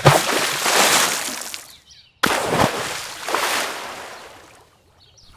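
Water splashing as a doll plunges into a toy swimming pool: a splash at the start that dies away over about two seconds, then a second sudden splash just after two seconds in that fades out slowly.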